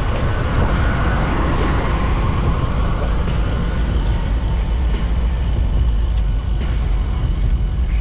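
Steady rumbling rush of wind over the microphone of a camera on a moving road bike, with road noise from rolling on concrete.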